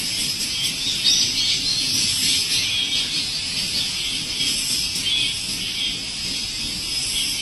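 A busy chorus of small birds chirping and twittering continuously over a steady hiss.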